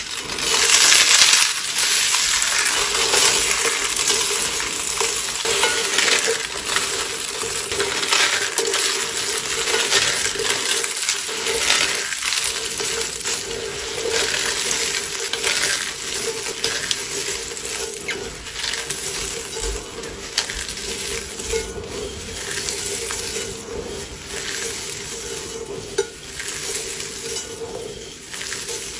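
Dry soap roses and soap curls being crushed: a continuous dense crunching and crackling that eases slightly toward the end.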